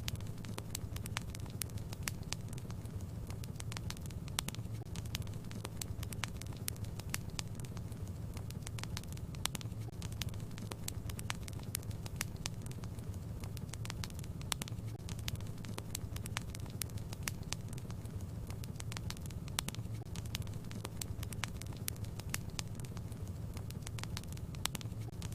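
Wood fire in a fireplace crackling, with frequent irregular sharp pops and snaps over a steady low hum.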